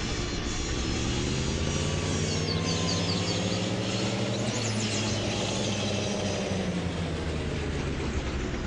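GAZ vehicle's engine running steadily, its pitch rising about two seconds in and easing back down near the end. Birds chirp briefly over it in the middle.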